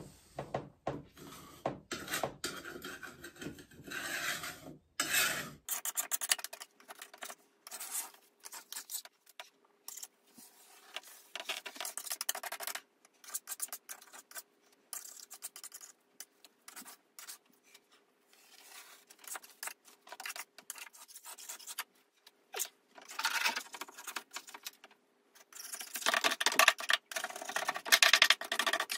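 Wallpaper scraper scraping soaked backing paper off a wall in repeated, irregular strokes, louder in spells near the start and near the end.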